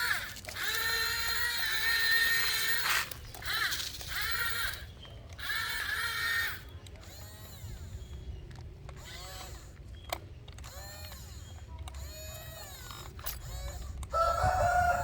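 Small electric motors of a remote-control toy excavator whining in bursts as its arm and body are worked. Three long, loud whines in the first six seconds are followed by quieter whines that rise and fall in pitch, and a loud one near the end.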